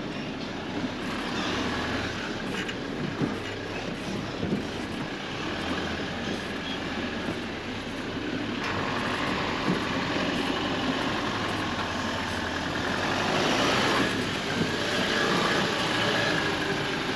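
Four-wheel-drive ute driving through soft sand, its engine running under a noisy wash of tyre and wind sound, getting louder toward the end as it comes close.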